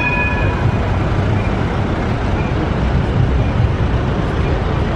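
Busy city street traffic: a steady rumble of cars and vans passing, with a short high tone just at the start.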